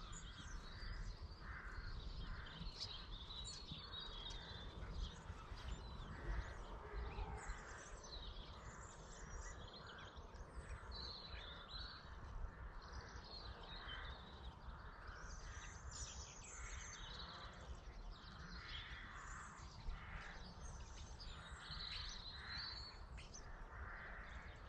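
Faint outdoor background: birds chirping and calling here and there over a steady low rumble.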